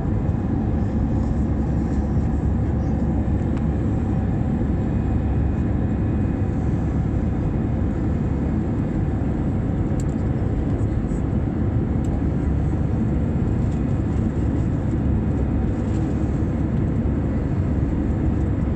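Steady drone of an Airbus A320-family airliner's jet engines and rushing air as heard inside the cabin during the climb after takeoff. It is even and mostly low-pitched, with a few faint steady tones above it.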